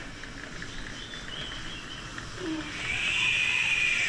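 Pot of soup bubbling faintly on the stove, with a drawn-out animal call starting in the background about three seconds in.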